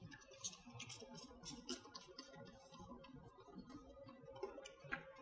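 Faint short hisses of an aerosol can of lightweight oil being sprayed onto a chainsaw guidebar and chain, a series of quick bursts, most of them in the first two seconds and a few more near the end.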